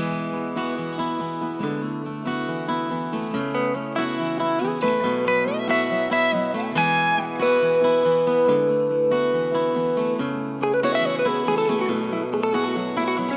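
Background music led by acoustic guitar, with steady plucked and strummed notes and some sliding melody lines.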